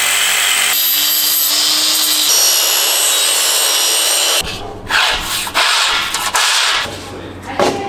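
Power saws cutting metal in short clips that change abruptly: a reciprocating saw, then a sliding mitre saw cutting an aluminium decking board. Toward the end the sound comes in separate louder bursts with a few knocks.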